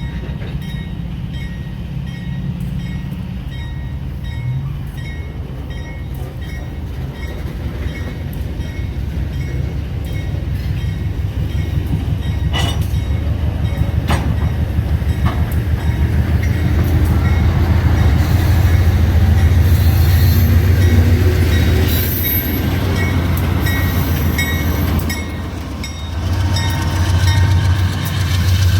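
GE B39-8E diesel locomotives running past with a heavy low engine rumble that grows steadily louder, peaks about two-thirds of the way in, dips briefly and rises again near the end. A few sharp clacks of wheels on the rails.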